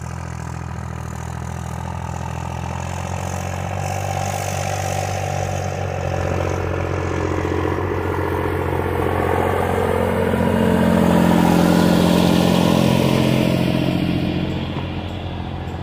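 Small three-cylinder Massey Ferguson tractor engine running with an odd-sounding rumble, steady at first, growing louder about ten seconds in and easing off near the end.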